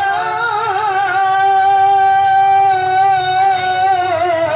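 A male qari reciting the Quran in melodic tilawah style. He wavers through an ornament at the start, then holds one long, steady high note, with a brief waver near the end.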